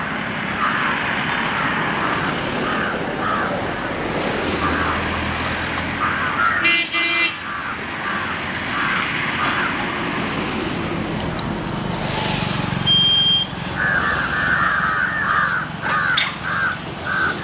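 Road traffic passing, with a vehicle horn sounding briefly about seven seconds in, while crows caw over and over.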